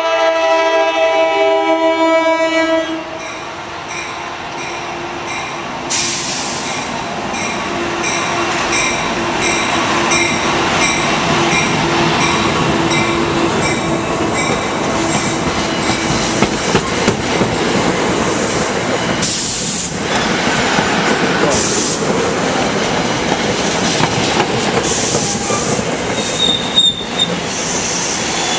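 An NJ Transit ALP-44 electric locomotive sounds its multi-note horn for about three seconds as it pulls into the station. A bell then rings about twice a second as the locomotive and its Comet IV coaches roll past, their wheels clattering over the rail joints, with short squeals and hissing bursts later on as the train slows.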